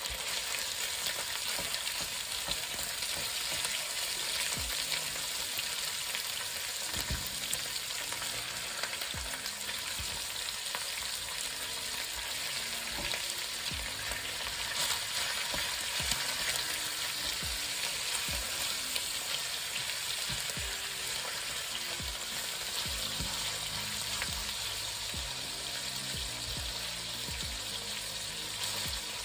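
Pork loin pieces sizzling in hot olive oil and garlic in a stainless steel pot, a steady frying hiss. Now and then soft knocks come as the pieces are laid in and pushed around with a silicone spatula.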